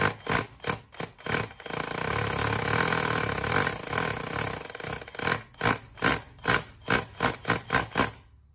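Bosch GBH18V-26D 18 V brushless SDS-plus rotary hammer hammering its bit into a slab in chisel (hammer-only) mode. It starts in quick pulses of about three a second, runs steadily for about three seconds, then goes back to quick pulses and stops just before the end.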